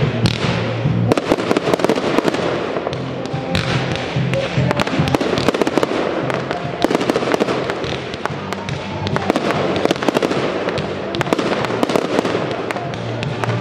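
Aerial fireworks firing continuously: a dense run of sharp pops and crackles as comets rise and star shells burst, with music playing underneath.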